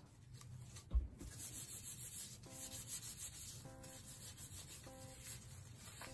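Soapy gloved hands rubbing together, a soft steady rubbing with a low thump about a second in. Faint music repeats a short figure about every second and a quarter.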